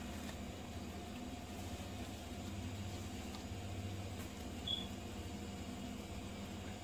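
Faint steady low hum, with one brief high-pitched chirp about two-thirds of the way through.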